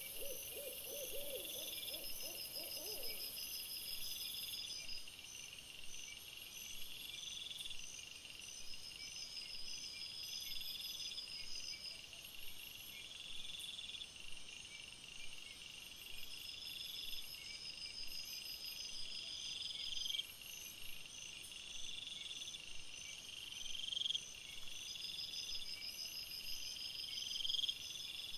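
Night-time woodland animal sounds: a steady high chorus of repeating insect-like chirps, one short chirp about every two seconds over a quicker high trill. A lower, wavering call is heard in the first few seconds.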